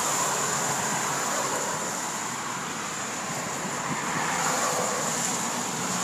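Steady rushing road and tyre noise of a car driving, with a thin steady high hiss over it.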